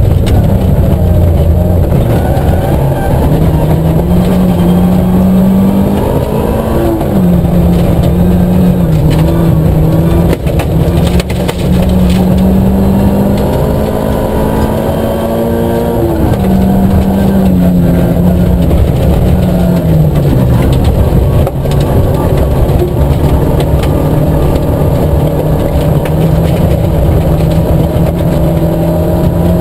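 Nissan Micra K11 rally car's engine heard from inside the cabin, revving hard. Its pitch climbs, drops sharply at gear changes and lifts, and climbs again, then holds steady near the end, over loud tyre and gravel road noise.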